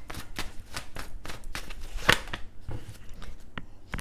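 Tarot cards being shuffled in the hands: a run of quick card snaps, about three or four a second, the loudest about two seconds in.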